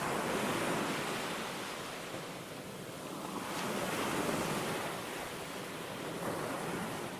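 Sea waves washing on a sandy beach: an even rush of surf that swells and falls back twice and starts fading out near the end.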